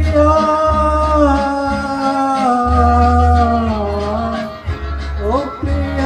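Singing through a microphone and PA loudspeaker, with long held notes that glide slowly down and then up again near the end.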